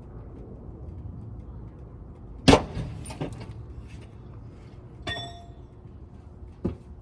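A few hard knocks and clanks: a loud sharp knock about two and a half seconds in, a smaller one just after, a ringing metallic clang about five seconds in, and a short knock near the end, over a low steady rumble.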